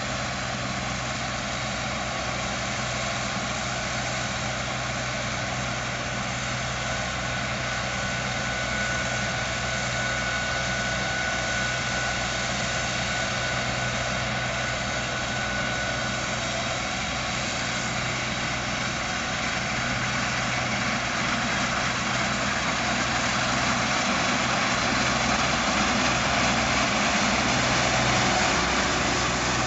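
Case IH 2166 Axial Flow combine harvester working through soybeans: its diesel engine and threshing machinery run with a steady drone, with a thin high whine for several seconds in the middle. It grows louder near the end as the machine comes close.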